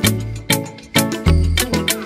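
Upbeat background music with a steady beat and a bass line.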